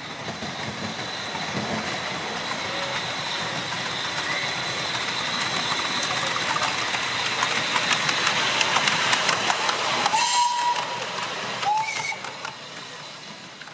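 Ride-on miniature railway train approaching and passing close by, getting louder over about ten seconds, with its wheels clicking over the track joints. A short steady high tone sounds about ten seconds in as it goes by, then the train noise falls away.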